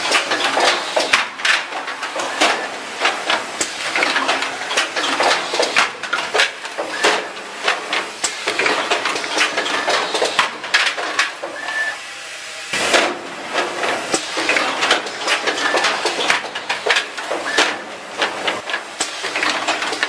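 Automatic power-strip assembly line running: a dense, irregular clatter of machine heads and fixtures clicking and knocking over a steady hiss of air, with one louder knock a little past halfway.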